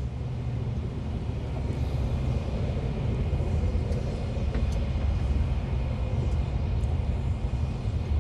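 Lorry's diesel engine heard from inside the cab as the truck crawls in stop-go motorway traffic: a steady low rumble with road noise, and a few faint ticks.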